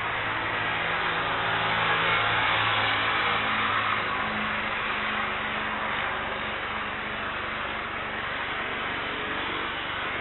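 Airbus A321neo's Pratt & Whitney geared turbofan engines at takeoff thrust as the airliner lifts off and climbs away: a broad rushing roar that swells about two seconds in and then slowly fades.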